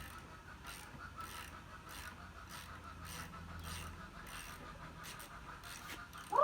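Ratchet wrench with a 17 mm socket clicking as it is worked back and forth, loosening the motorcycle's rear shock mounting bolt, with faint clicks about two or three a second. A chicken squawks right at the end.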